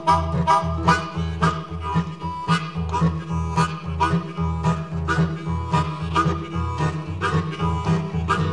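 Background music: the instrumental break of an acoustic blues song, a harmonica playing over guitar at a steady beat.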